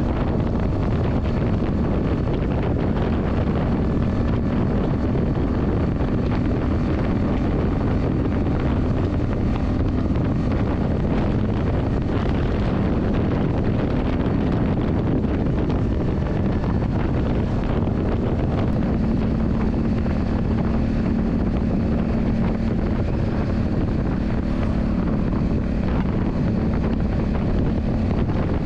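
Yamaha Drag Star 400's V-twin engine running at a steady pitch, with wind rushing over the microphone.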